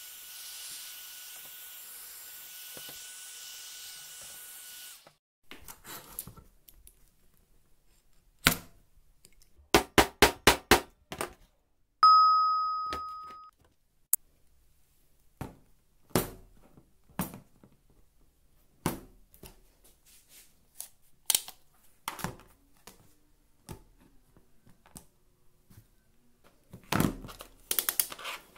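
A heat gun blows steadily for about five seconds, a thin whine over its hiss. Then come scattered clicks and knocks, a quick run of taps, and a single ringing ding that fades over about a second and a half, with tape-measure handling noise near the end.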